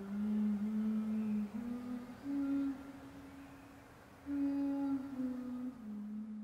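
A woman humming a slow tune with closed lips: long held notes that step up and down in short phrases.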